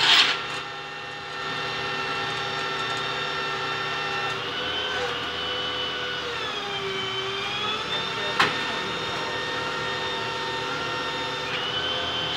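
A vehicle engine runs steadily nearby. Its pitch lifts slightly about four seconds in, then sags and recovers over the next few seconds, as if under changing load. One sharp click comes about eight seconds in.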